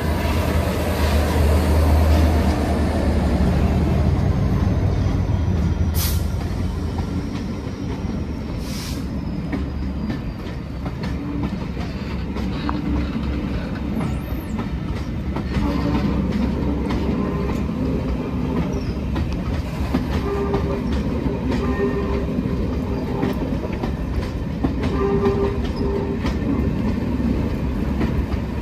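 GB Railfreight Class 66 diesel locomotive running past, its two-stroke V12 engine deep and strong for the first few seconds, then passenger coaches rolling slowly by on the rails with a steady rumble.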